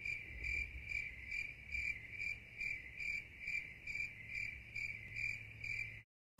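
Insect chirping in a steady high-pitched rhythm, about two chirps a second, stopping abruptly near the end.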